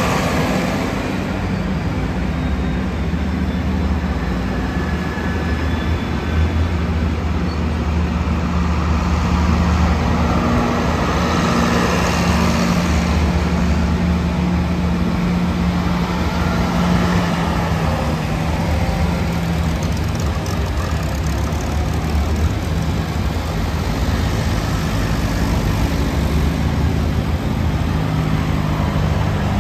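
Diesel engines of John Deere farm tractors running as the tractors drive past one after another at low speed, a steady low engine drone.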